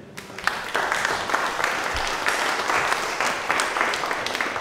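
A seated audience applauding, many hands clapping steadily.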